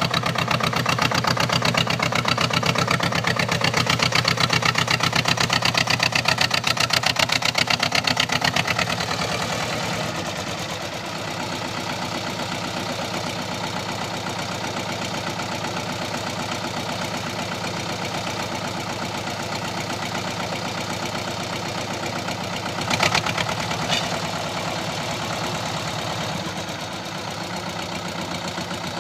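Same 250 tractor engine running with a fast, even pulse while ploughing. It is loud for the first nine seconds, then drops back and runs more quietly. Two short knocks come near the end.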